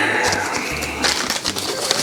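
Background music with a repeating low bass line, over a few light clicks and knocks of material being handled.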